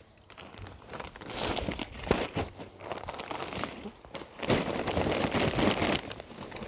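Plastic bags of garden mulch and mushroom compost crinkling and rustling as they are handled, with a quieter moment a little after four seconds in.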